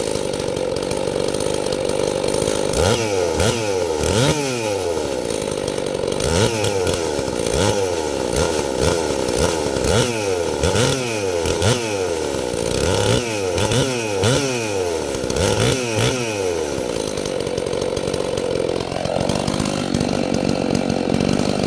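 Husqvarna 266 two-stroke chainsaw, freshly ported and fitted with a reworked muffler, running on its first start: the throttle is blipped over and over, the engine revving up and dropping back about once a second, then it runs more steadily for the last few seconds.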